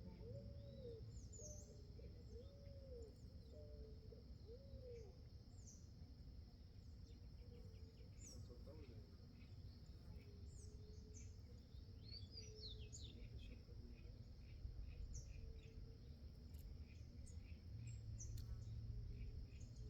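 Faint backyard birdsong: scattered short, high chirps of small birds, with a series of low, rising-and-falling notes in the first few seconds. A steady faint high tone runs underneath.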